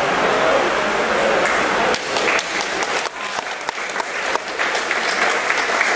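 Small crowd of spectators cheering and shouting, then breaking into scattered clapping about two seconds in.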